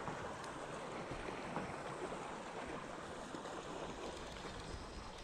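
Steady hiss of wind and moving water around a small boat on a river, with no distinct events.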